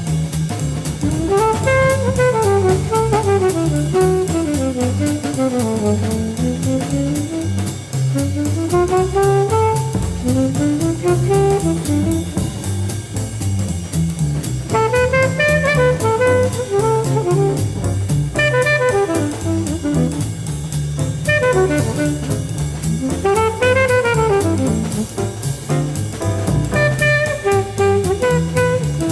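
Live jazz quartet: an alto saxophone solos in quick runs that climb and fall, over double bass and drum kit keeping time.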